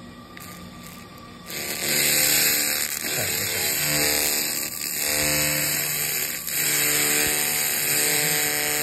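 Pulsed laser cleaning head ablating rust off a steel channel: a loud, harsh buzzing hiss with a pitched hum in it. It starts about a second and a half in and runs on with a few brief breaks.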